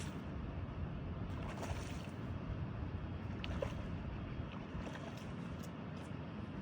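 Steady rumble of wind on the microphone and water at the shore, with a few faint clicks.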